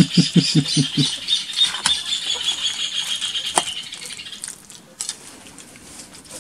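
A metal spoon stirring and scraping a thick mayonnaise salad in a glass bowl, making a fast rattling clatter for the first few seconds. A few sharper clinks of the spoon on the glass follow before it grows quieter.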